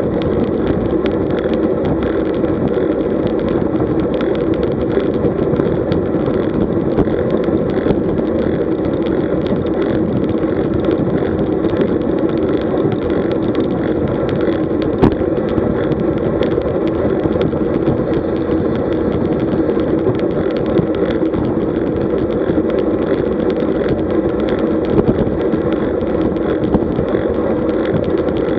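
Steady wind rush and tyre-on-road rumble heard through a camera mounted on a road bike moving at about 40 km/h, with small clicks and knocks from the road surface and one sharper knock about halfway through.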